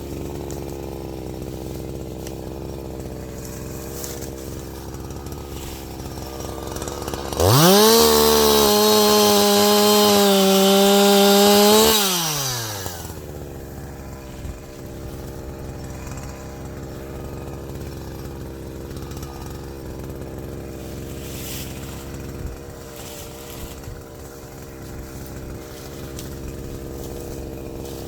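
Chainsaw idling, then revved up to high speed about seven seconds in and held there for about four seconds, then dropping back to idle.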